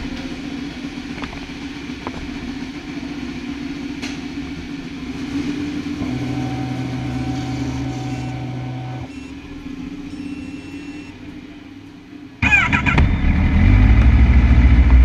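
Engines of other motorcycles running in the background. About twelve seconds in, the Kawasaki ZX-10RR's inline-four engine is started: it cranks briefly, catches and settles into a loud, steady idle.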